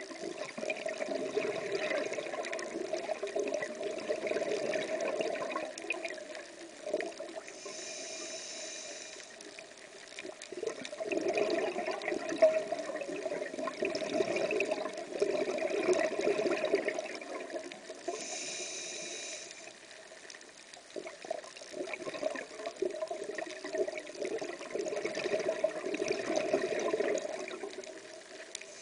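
Scuba diver breathing through a regulator underwater: long bubbling exhalations of several seconds, each followed by a short hiss of inhalation, repeating about every ten seconds.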